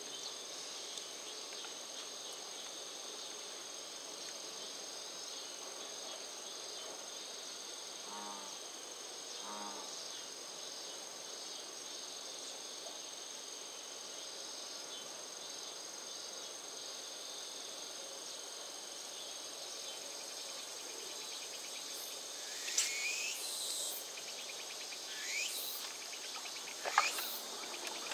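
Steady high-pitched chorus of insects. Near the end, a few short, sharp swishing and splashing sounds come as a fish breaks the surface of the pond.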